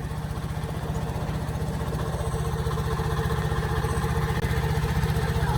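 A heavy machine's engine running steadily with a fast, even chugging, getting slightly louder.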